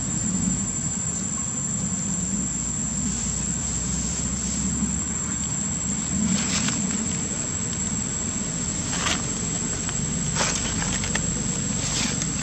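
A steady, high-pitched insect drone over a low, constant traffic rumble, with a few brief sharp sounds in the second half.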